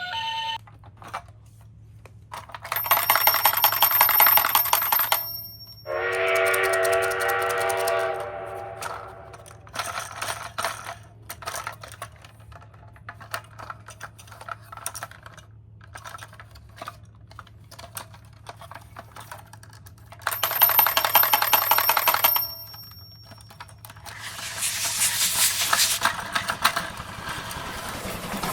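Small toy cars clattering along a plastic toy course, with a thin whirring in two short spells and scattered clicks between them. A toy's electronic tone sounds for a few seconds after the first spell.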